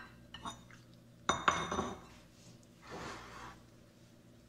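Ceramic plates and bowl clinking against each other: a light clink, then a louder ringing clink about a second and a half in, and a short scraping noise near the end.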